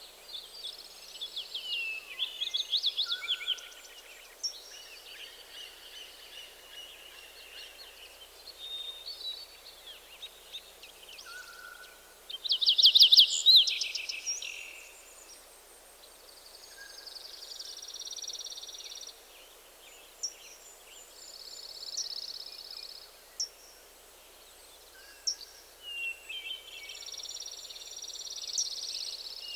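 Several songbirds singing in overlapping phrases of chirps, quick trills and buzzy notes, over a faint steady background hiss. The loudest burst of song comes about halfway through.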